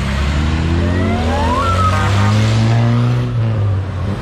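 Off-road vehicle engine accelerating as it pulls away, its pitch rising for about two seconds and easing off near the end.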